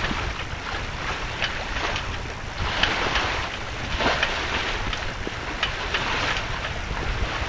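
Wind buffeting the microphone over the rush of water along a sailboat's hull as it sails through choppy water, with repeated brief splashes as the bow meets small waves.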